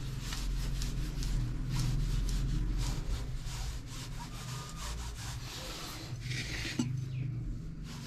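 Palms rolling a long rope of flour dough back and forth on a granite countertop: a steady rubbing. A short knock near the end.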